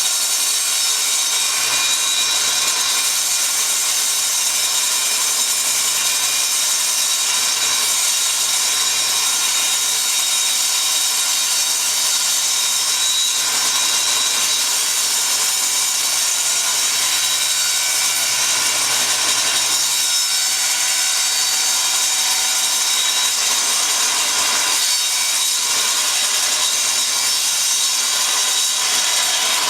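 Table saw running steadily while ripping a long sheet of 3/4-inch MDF, the blade cutting continuously with no break.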